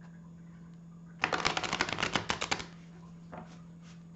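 A tarot deck being shuffled: a quick run of card flicks that starts about a second in and lasts about a second and a half.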